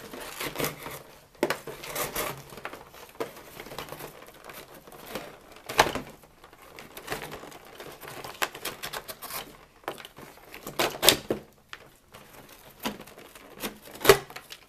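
Cardboard packaging being handled: rustling and scraping of cardboard insert pieces and string ties being pulled loose, with scattered light clicks and a few sharper knocks, about six, eleven and fourteen seconds in.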